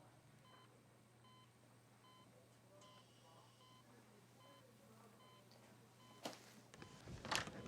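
Faint, regular electronic beeping of a hospital patient monitor, a short beep roughly every two-thirds of a second, as in a neonatal intensive care unit. A couple of sharp, louder sounds come near the end.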